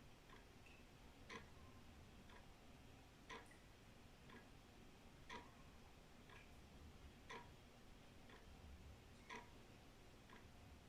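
Old wall clock ticking faintly, about one tick a second, alternating a louder tick with a softer tock.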